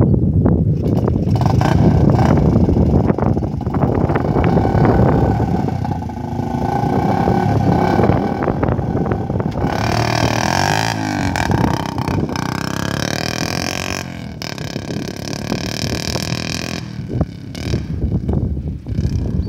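Small children's dirt bike engine running and revving, its pitch rising and falling as the rider sets off. In the last couple of seconds it is quieter and further away.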